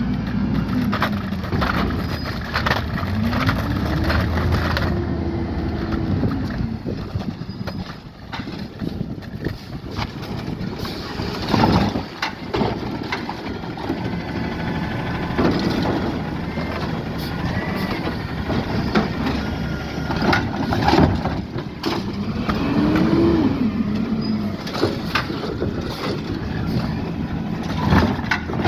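Peterbilt 520 recycling truck with a Rapid Rail automated side-loader working the curb: the engine revs up and falls back several times, with scattered knocks and clatters.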